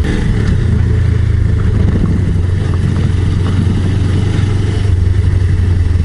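Suzuki GSR250's 248 cc parallel-twin engine running at a steady pitch as the motorcycle is ridden along, heard from the saddle.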